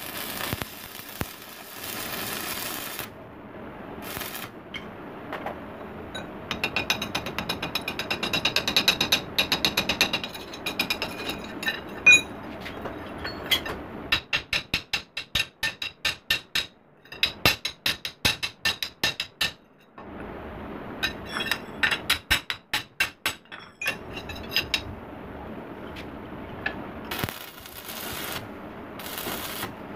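Stick arc welding crackles and hisses at the start and again near the end. Between the two welds, a ball-peen hammer strikes the fresh weld joint on a steel blade: first a fast run of ringing metallic taps, then separate blows about three a second.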